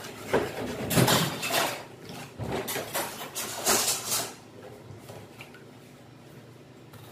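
Kitchen knife cutting and scraping through a fish on a board over a stainless steel sink, with irregular clatters and scrapes of the blade and board against the metal. It goes quieter about four seconds in.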